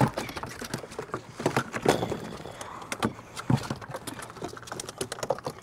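Freshly landed speckled trout flopping on a boat's deck: an irregular patter of knocks and slaps.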